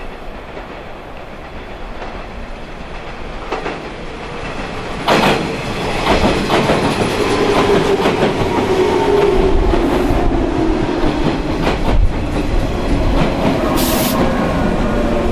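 JR 115 series 300 subseries electric train pulling into a station and slowing, its wheels clacking over the rail joints, louder as it draws alongside. There is a loud clack about five seconds in, a hum that falls slowly in pitch as it slows, and a short hiss near the end.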